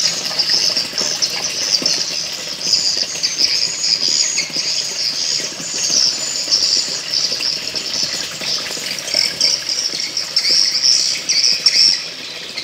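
A chorus of small birds twittering and chirping continuously in high, rapid, irregular notes, easing off just before the end.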